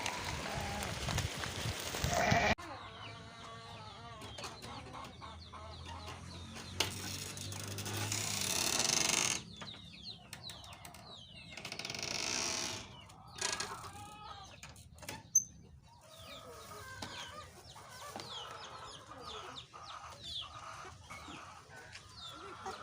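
Chickens clucking and chirping, with other farm animal calls mixed in; the sound changes abruptly about two and a half seconds in.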